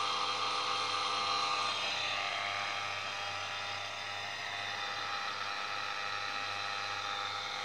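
Kinor 16CX-2M film camera's electric motor running at a steady speed, held phase-locked to a crystal reference by a PWM MOSFET drive: an even whir with several high whining tones.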